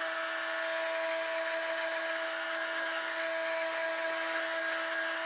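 Handheld electric heat gun running steadily: an even rush of blown air with a steady motor whine, drying freshly sprayed paint on ripstop nylon.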